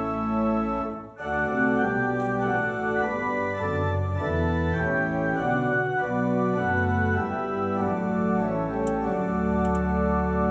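Organ playing a hymn in sustained, changing chords, with a brief break about a second in.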